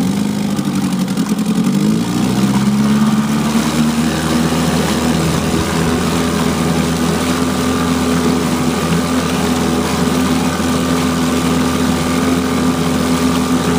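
1972 Evinrude 4 hp Lightwin twin-cylinder two-stroke outboard running in a test tub, its exhaust churning the water. Its speed sags in the first two seconds, picks back up, then holds steady.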